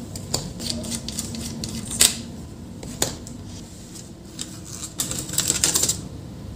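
Clicks and rattles of an HP ProBook 450 G5 laptop motherboard being worked loose and lifted out of its chassis: a sharp click about two seconds in, another a second later, then a quick run of rattling clicks near the end.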